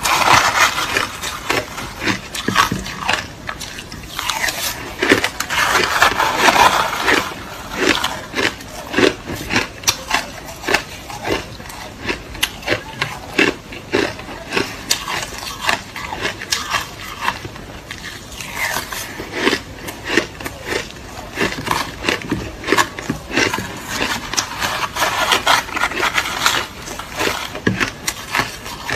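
Crushed ice being chewed close to the microphone: dense, irregular crunching and cracking throughout, with louder runs of crunches now and then.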